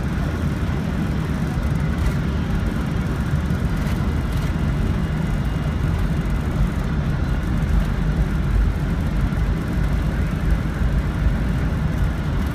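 Boeing 747-400 on its takeoff roll at takeoff thrust, heard from inside the cockpit: a steady, loud low rumble.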